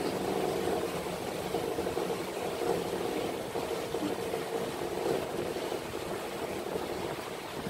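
A boat's engine runs steadily with an even hum of a few held tones, while the boat moves slowly out through a canal lock.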